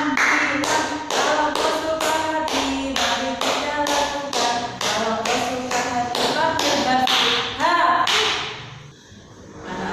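A woman singing a short children's song while clapping her hands in a steady beat. The claps and the held sung notes stop about eight seconds in.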